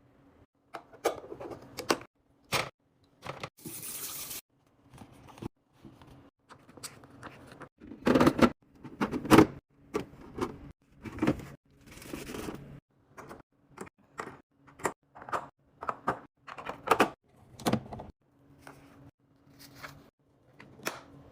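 Containers and food items being handled and set down while a refrigerator is arranged: an irregular string of clicks, knocks and scrapes, with a short hiss about four seconds in and a faint steady hum beneath.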